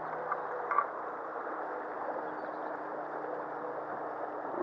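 Shallow stream water rushing steadily over a riffle, with two brief sharp clicks about a second in.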